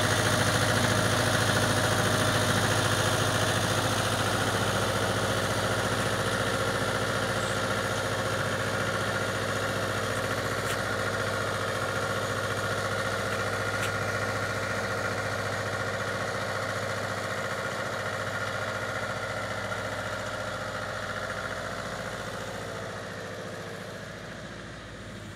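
Small diesel flatbed truck's engine running at a steady, low speed as the truck drives away, its sound fading gradually.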